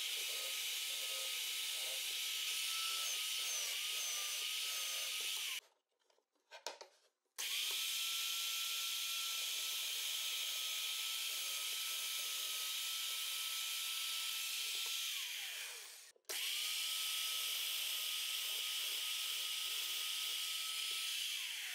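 Bench drill press running, its motor giving a steady whine with a hiss as it bores holes in plywood. The sound breaks off twice, and the motor winds down with a falling pitch about fifteen seconds in and again near the end.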